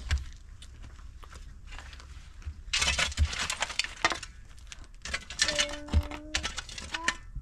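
Pickaxe and shovel digging into dry, stony soil: sharp strikes and gravelly scraping in irregular bursts, heaviest about three seconds in and again around six.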